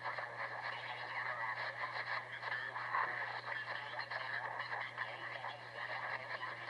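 Shortwave radio receiver tuned to 3700 kHz, playing a continuous garbled, chattering signal of unknown origin over a steady low hum.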